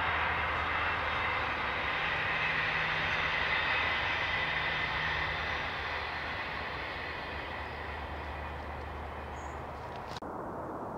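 Class 158 diesel multiple unit passing along the line: a steady engine drone with rail noise that fades away from about six seconds in, then the sound cuts off abruptly near the end.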